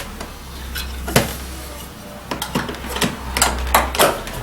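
Plastic door trim and its clips being pried and handled: scattered sharp clicks and clatters, one about a second in and a quick run of them in the second half.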